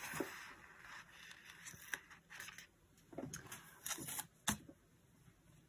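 Paper and sticker sheets being handled: soft rustles with a few sharp clicks and taps.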